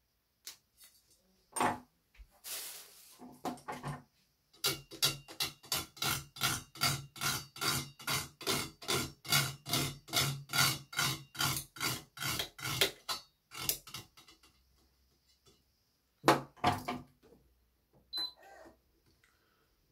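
Handling and tool sounds from stringing a badminton racket. A few sharp knocks come first, then a fast, even run of clicks, about four a second, for roughly eight seconds, then more knocks near the end.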